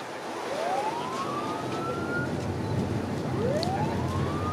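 Siren of the Japan Coast Guard patrol boat CL-116 Miekaze, sounding during a high-speed run. It gives two rising wails, one starting about half a second in and one about three and a half seconds in; each climbs for nearly two seconds and cuts off at the top. Under them is a steady rush of noise.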